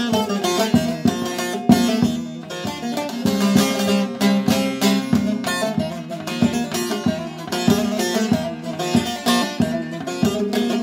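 A carved mulberry bağlama (long-necked Turkish saz) played solo with a pick: a Turkish folk tune in quick picked notes over ringing open drone strings.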